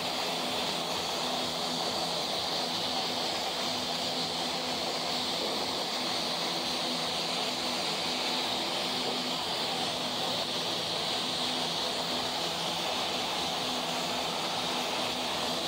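Steady, even drone of propeller aircraft engines, a hissing noise with a low hum under it that does not rise or fall.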